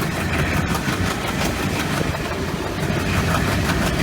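WDG3A diesel-electric locomotive's ALCO 16-cylinder engine running with a steady low rumble.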